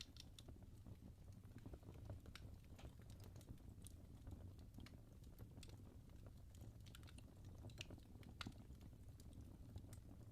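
Logs burning in a fireplace: faint, irregular crackles and pops over a low, steady rumble of the fire.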